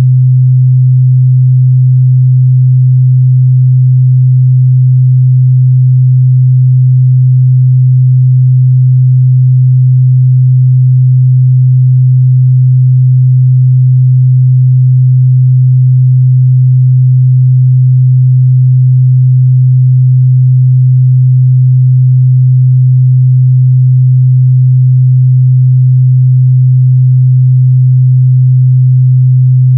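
A continuous 128 Hz sine-wave test tone: a pure, steady low hum that holds the same pitch and loudness without a break.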